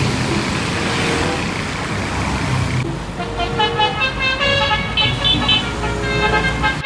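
Vehicle noise for the first few seconds, then a multi-tone 'telolet' bus horn playing a stepping tune.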